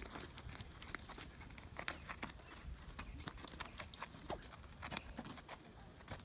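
Horse walking on soft sand, its hooves giving faint, irregular scuffs and clicks.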